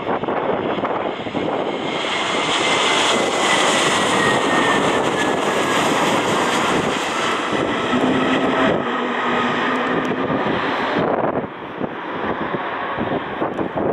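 Airbus A321neo jet airliner passing close by, its Pratt & Whitney geared turbofan engines running loud, with a whine that falls steadily in pitch as it goes past. The engine noise drops off sharply about eleven seconds in.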